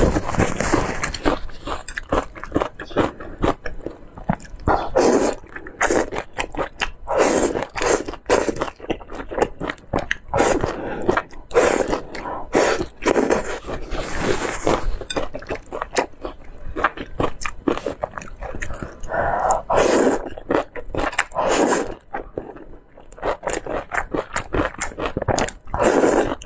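Close-miked eating sounds: wet chewing and slurping of thick noodles in a spicy sauce, with many quick smacking clicks from the mouth.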